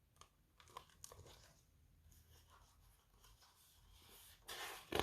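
Faint paper rustling and crinkling as a picture book's page is turned, with a few small clicks and a louder rustle near the end.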